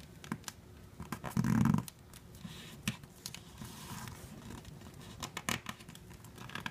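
Sheet of paper being folded and creased by hand on a tabletop: soft rustling and sliding of fingers over paper with small scattered clicks. About a second and a half in, a brief louder low-pitched sound stands out.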